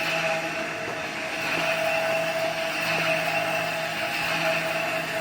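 Rubber and EVA splitting (skiving) machine running: a steady mechanical hum with a few constant tones over an even hiss.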